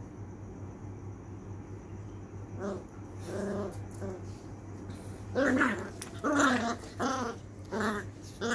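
Beagle puppies play-fighting, growling and yapping in short bursts that start a few seconds in and grow louder and closer together in the second half.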